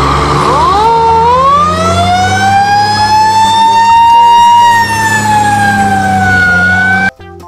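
Fire truck siren wailing. Its pitch climbs quickly about half a second in, keeps rising slowly to a peak, then falls gently before cutting off abruptly near the end, with a steady low hum underneath.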